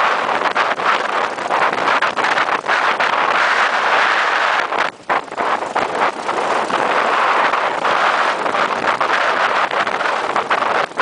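Off-road cage buggy driving on a dirt track: a loud, rough, steady rush of engine and road noise, dipping briefly about five seconds in.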